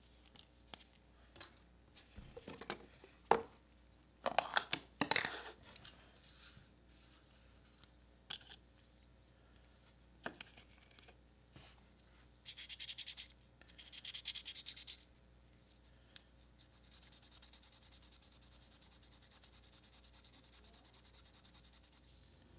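1000-grit sandpaper rubbing by hand on a small clear plastic toy window. Scattered handling clicks and taps, then two short bursts of scratchy sanding strokes a little past halfway, and a steady fine rasp of rubbing over the last several seconds.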